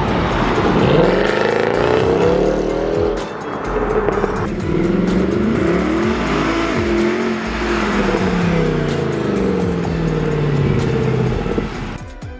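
Mercedes-AMG C63's 6.2-litre naturally aspirated V8 through a custom exhaust, driven hard past, its pitch climbing and dropping several times as it revs. The engine sound fades out near the end.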